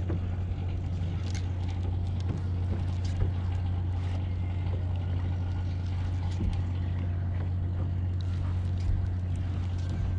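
A steady low motor drone, like a boat engine running, with faint scattered ticks and rustles over it.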